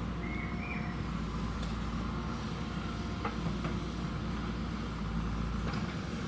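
JCB backhoe loader's diesel engine running steadily, with a few short knocks about halfway through and again near the end.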